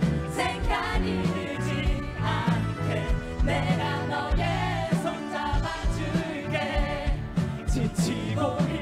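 A pop song with a sung melody over a backing track with a steady beat.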